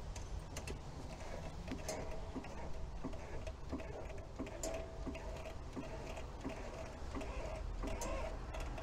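Hydraulic floor jack being pumped by its long handle to lift a car, with light regular clicks from the pump, about two a second.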